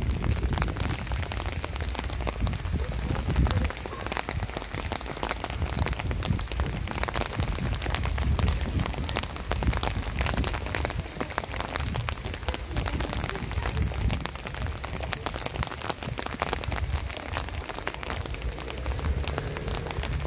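Steady rain: many small drop ticks over an even hiss, with a low rumble underneath.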